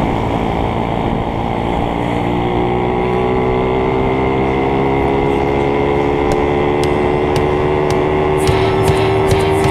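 Honda Bravo underbone motorcycle's small single-cylinder four-stroke engine running through an aftermarket "chicken pipe" exhaust while under way. Its pitch climbs slowly from about two seconds in as the bike gains speed.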